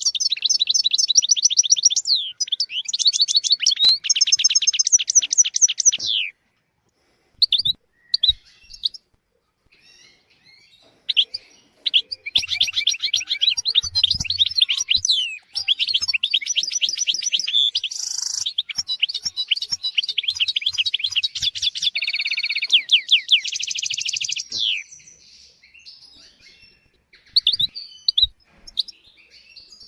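European goldfinch singing: fast twittering trills and rapid repeated notes in long phrases, a short phrase at the start, a pause of a few seconds with scattered notes, then a longer phrase, ending in scattered single calls.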